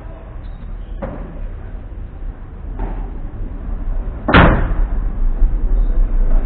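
Padel ball being hit during a rally: a couple of sharp hits, then a much louder hit close by, about four seconds in.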